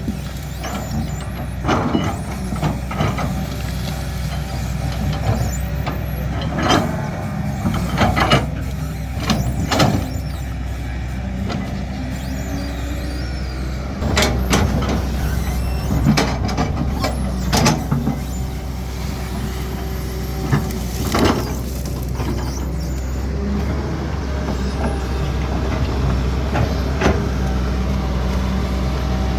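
Caterpillar 320D excavator's diesel engine running steadily under work, with repeated sharp knocks and clanks from the machine working the ground.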